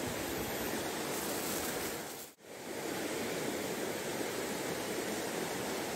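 Shallow stream flowing over rocks, a steady rushing wash of water. It briefly fades out and back in a little over two seconds in.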